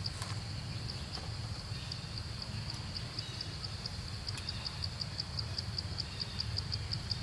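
Insect chirping steadily in a high-pitched, even rhythm of about four to five pulses a second, over a low steady rumble.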